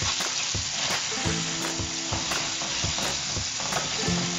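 Diced tomatoes sizzling in hot oil in a stainless steel frying pan, stirred with a wooden spatula that scrapes and knocks against the pan, loosening the browned bits on its bottom.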